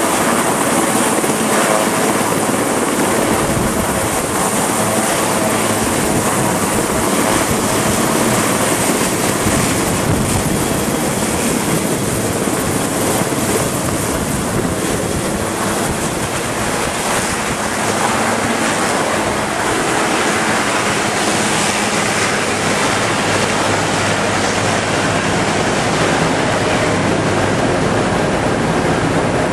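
Sikorsky S-61 helicopter's twin turboshaft engines and rotor running close by: a loud, steady rush of rotor and turbine noise.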